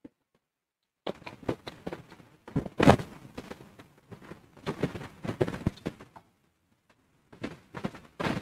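Close-miked eating sounds of fried noodles: wet chewing and mouth clicks, mixed with a spoon and fork scraping and clinking on a metal plate. They start about a second in, with a short pause near the end.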